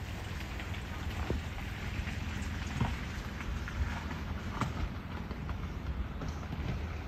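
Steady outdoor background noise with a low rumble, broken by a few faint ticks about a second and a half apart.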